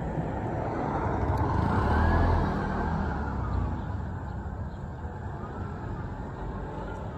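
A motor tricycle (keke) drives past, its small engine growing louder to a peak about two seconds in and then fading away over steady road noise.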